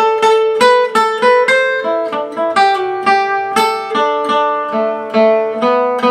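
A restored 1929 Gibson L5 carved archtop acoustic guitar played with a pick. It plays a melodic line of single notes and double-stops, about three a second, each with a quick, sharp attack. The last notes near the end are left to ring.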